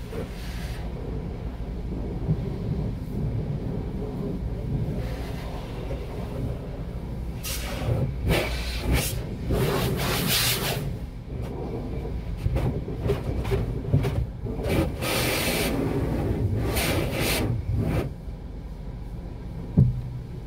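Sonny's car wash tunnel heard from inside the car's cabin: a steady low rumble, with repeated hissing bursts of spray and foam striking the windshield and body from about seven seconds in until near the end, then a short thump.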